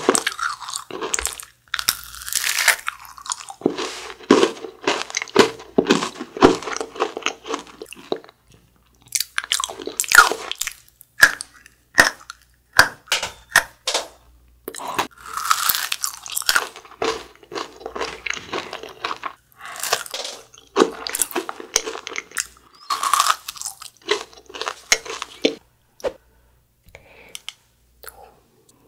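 Crisp crunching and chewing as an edible hairbrush-shaped purple dessert is bitten into and eaten, in clusters of sharp crackles with short pauses between them.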